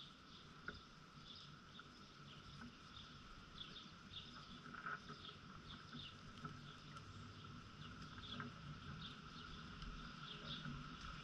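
Faint yard ambience: scattered short bird chirps over a steady high-pitched hum, with a few soft clicks.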